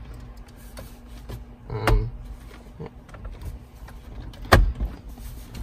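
Plastic dashboard trim of a 2008 Ford F-350 being pressed into place by hand around a new head unit, its retaining clips snapping home with a few sharp clicks and knocks, the sharpest about four and a half seconds in.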